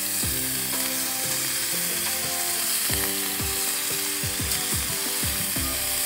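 Bacon frying in a pan on a camp stove: a steady crackling sizzle.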